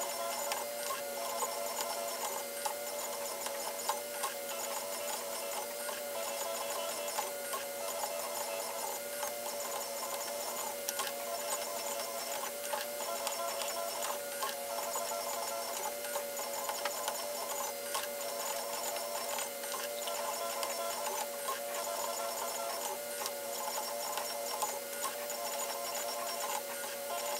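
M3D desktop 3D printer printing, its stepper motors giving a steady, slightly wavering whine and buzz as the print head moves, with scattered small clicks.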